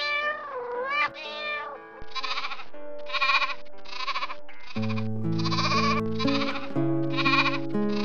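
Meowing calls with bending pitch in the first two seconds, then lambs bleating over and over: about seven bleats in quick succession, roughly one every 0.7 seconds. Background music with sustained low chords runs underneath and grows louder about halfway through.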